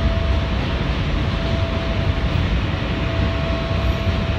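R160 subway train running at speed on elevated track, heard from inside the front car: a steady rumble of wheels on rail with a faint steady tone above it.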